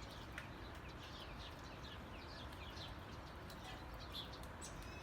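Small birds chirping: many short, quick, falling notes repeated throughout, over a faint steady background hiss.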